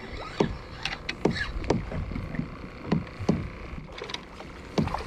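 Short knocks and sloshing water against a plastic sit-on-top fishing kayak's hull, repeating about twice a second.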